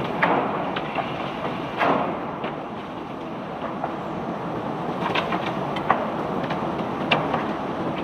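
Crushed white limestone flowing out of a barge during unloading: a steady rush of sliding rock with irregular sharp clacks as stones knock together.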